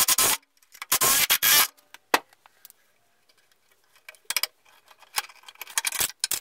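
Cordless brushless drill boring into wood through a clamped guide jig in two short bursts, the second about a second long. After a quiet spell come scattered light clicks and knocks of quick-release bar clamps and the wooden jig being handled.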